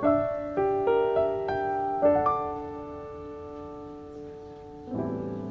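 Soft background piano music. A few single notes sound over the first two seconds, one note is held and fades away, and a new chord comes in near the end.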